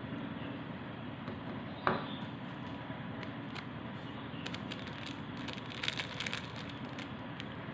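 Ingredients being added by hand to a mixing bowl: a single sharp knock about two seconds in, then a small sachet of vanilla powder crinkling and crackling as it is shaken and tapped out, over a steady background hiss.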